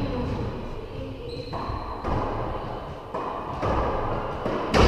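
Racquetball rally in an enclosed court: the ball smacking off racquets and walls, echoing, with the loudest hit near the end. A brief high squeak comes about a second in.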